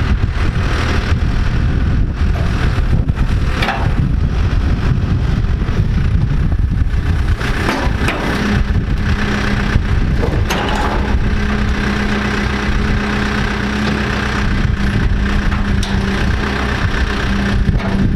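Case backhoe loader's diesel engine running under load as it pushes a steel shipping container across the dirt. A steady hum sets in about eight seconds in and holds, with a few short knocks along the way.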